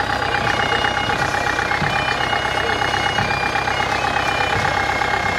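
International McCormick Super BWD-6 diesel tractor engine running steadily as the tractor moves forward towing a hay rick-lifting cage. A steady high tone sounds over the engine throughout.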